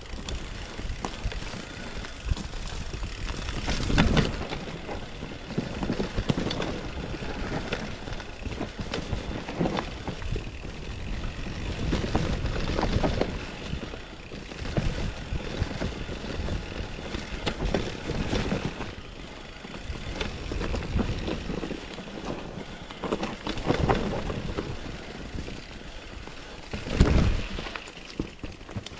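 Mountain bike riding down rough trail: steady rumble and rattle of tyres and frame over dirt and rocks, broken by louder jolts from bumps. The hardest hits come about four seconds in and again near the end.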